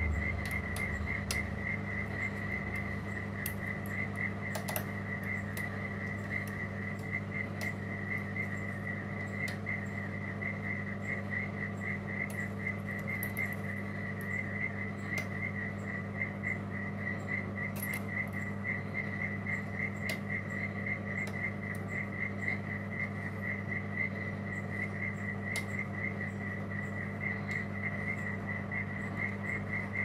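A steady, evenly pulsing high chirp like an insect's, over a low steady hum. Sparse faint clicks come from a Lishi LW4 pick-decoder working the pins of a Lockwood pin-tumbler lock.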